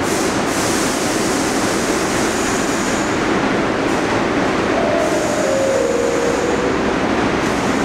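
New York City subway shuttle train running into the station as it approaches along the platform, a steady loud rumble and rush. Partway through, a faint tone steps down in pitch as the train slows.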